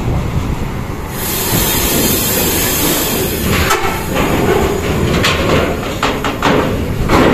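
Large coach bus passing at close range: a heavy rumble of engine and tyres. A loud hiss starts about a second in and lasts about two seconds, and several clattering knocks come in the second half.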